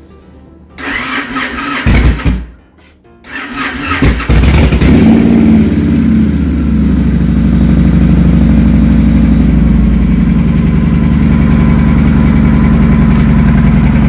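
The Victory Vegas's V-twin engine is cranked by its electric starter. The first try stops after about a second. The second try, about three seconds in, catches; the engine revs briefly and settles into a steady idle.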